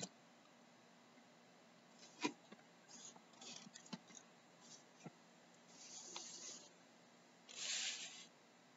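A few faint clicks from computer use at a desk, a sharper one about two seconds in, then two short hissy rustles around six and eight seconds in, over quiet room tone.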